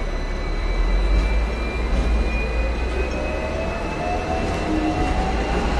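Hong Kong double-decker electric tram running, heard from on board: a steady low rumble with a thin whine rising slowly in pitch, as of the traction motors while the tram picks up speed.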